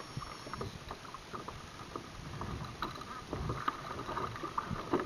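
Water slapping and lapping against a fishing kayak's hull, with many small irregular clicks and knocks.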